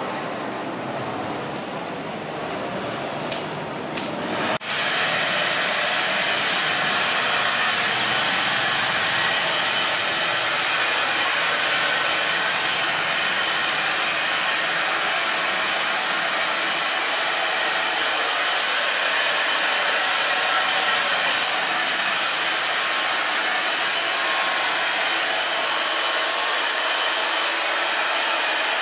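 Two sharp clicks, then a handheld hair dryer starts about four and a half seconds in and runs steadily, blowing on wet hair.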